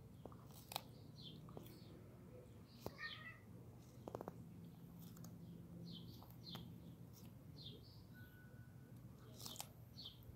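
Faint crunching clicks of a desert tortoise's beak biting into cucumber, with small birds chirping now and then in the background.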